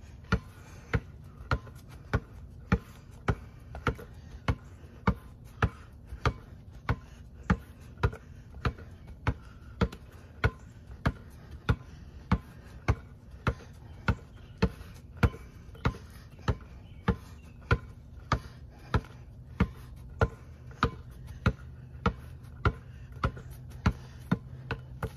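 A basketball being dribbled on the ground in a steady rhythm, a little under two bounces a second, each bounce a sharp slap.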